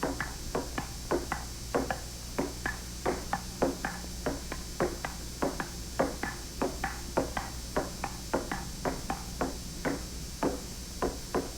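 A quick, slightly irregular run of short taps or plinks, about three a second, over a steady low hum.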